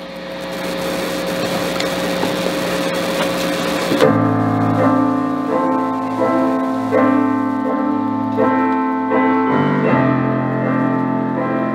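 A wash of noise swells for about four seconds, then a Yamaha CP stage piano plays slow, sustained chords: the opening of a ballad.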